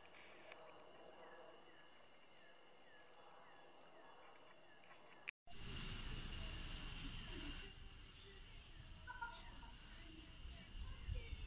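Insects trilling steadily in the night, with a run of short falling chirps two or three a second over the first five seconds. The sound cuts out for a moment about five seconds in, then the trilling goes on over a low rumble, with a high tone that pulses on and off.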